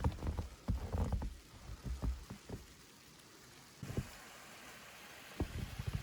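Footsteps crunching in fresh powdery snow, irregular steps with a pause in the middle. A low rumble, typical of wind on the microphone, dies away in the first second.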